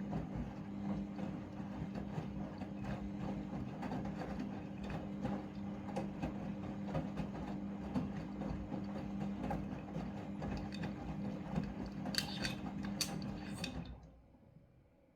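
Front-loading washing machine turning its drum during the rinse cycle: a steady motor hum with the wet load tumbling and knocking inside. A few sharper clicks come just before the drum stops near the end.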